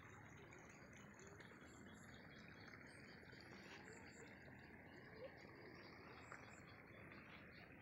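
Near silence: faint outdoor ambience with insects and an occasional bird chirp.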